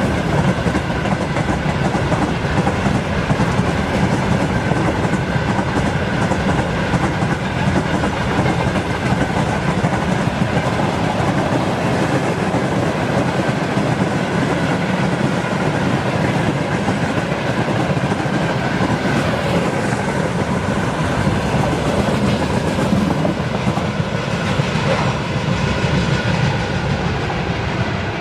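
Freight train wagons rolling past on the track, a loud, steady run of wheel and rail noise throughout.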